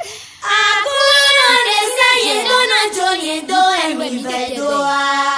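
High voices singing a melody, coming in about half a second in after a brief pause.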